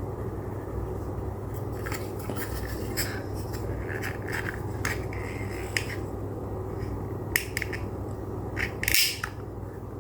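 Objects being handled, with scattered light scrapes and clicks over a steady low hum, and a louder scrape near the end.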